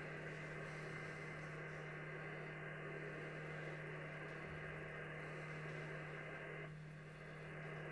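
Faint band noise from a Yaesu FTdx10 shortwave receiver in sideband mode: a steady hiss cut off above about 3 kHz, over a low steady hum. The hiss dips briefly near the end.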